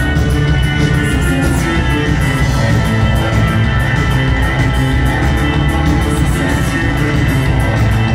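A live rock band playing loud, dense music with sustained keyboard-like notes over a steady drum beat, heard from within the concert crowd.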